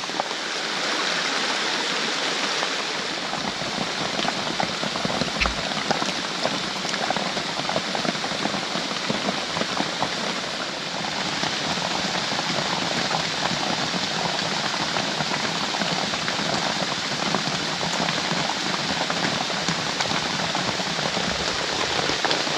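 Heavy rain falling steadily, with many separate drops pattering close by; a brief low thump about five seconds in.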